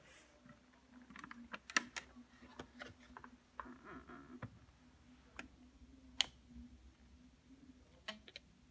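Scattered light clicks and small knocks from handling a Nagra III reel-to-reel tape recorder's reels and tape by hand, over a faint steady hum. Two clicks, a little under 2 s in and about 6 s in, stand out.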